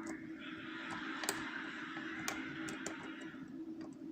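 Light, sparse clicks of a lock pick working the pin stack of a rim cylinder lock, with a soft scraping hiss for a couple of seconds in the middle, over a steady low hum.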